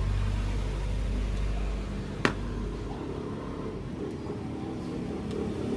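Low, steady engine-like hum in the background that fades out about three seconds in, with one sharp click a little after two seconds in.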